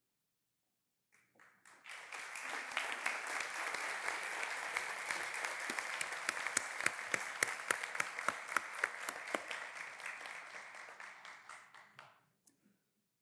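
Audience applauding in an auditorium. The applause starts about a second in, builds quickly, and dies away near the end, with single sharp claps standing out from the steady patter.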